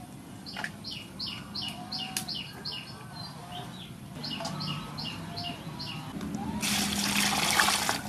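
A bird sings two runs of quick, falling chirps, about three or four a second. Near the end, water splashes loudly in a basin for about a second and a half.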